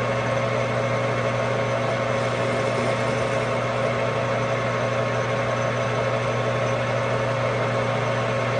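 Metal lathe running steadily through a turning pass, a constant motor hum with steady tones and no change in speed.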